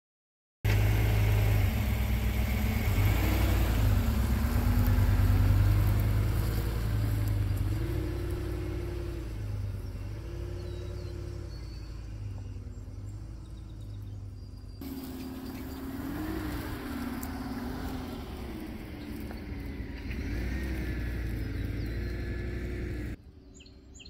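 Pickup truck's engine running as it drives across a field, its pitch rising and falling, starting about half a second in, then fading as the truck moves off. Near the end it drops to a quieter background with birds chirping.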